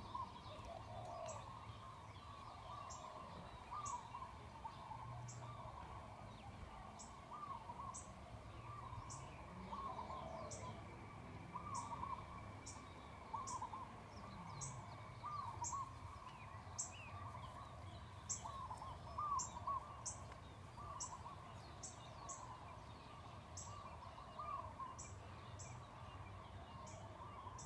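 Birds calling outdoors: many short chirping notes repeating throughout, with a faint high-pitched tick about once a second.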